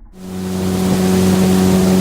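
Boat motor running steadily with a strong hum and a hiss of wind and water, starting abruptly and swelling over the first second.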